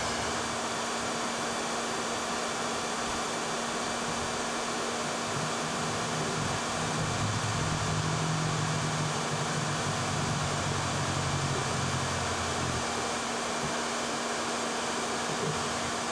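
Hair dryer running steadily, an even blowing hiss with a constant hum, heating the fender's painted metal for paintless dent repair.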